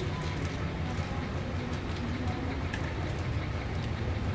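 A steady low hum with a few light clicks of plastic toys being picked up and dropped into a plastic basket.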